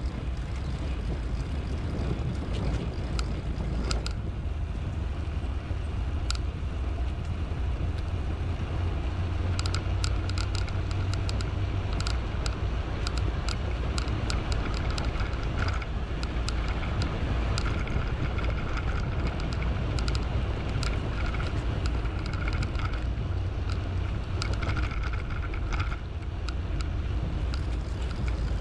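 Wind rushing over the microphone on a moving bicycle, a steady low rumble, with a dense run of sharp ticks and rattles from the bike through the middle stretch.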